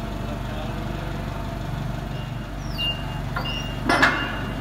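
Nissan forklift's engine running with a steady low drone. About halfway through, its reversing alarm starts: repeated high-pitched beeps with short gaps. A sharp clunk near the end is the loudest sound.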